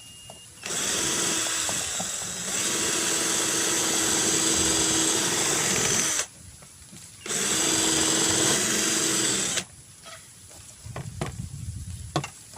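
Electric hand drill boring into a melamine bowl to make a drainage hole, running in two steady bursts: a long one of about five and a half seconds, then a shorter one of about two seconds after a brief pause. A few light knocks of handling follow.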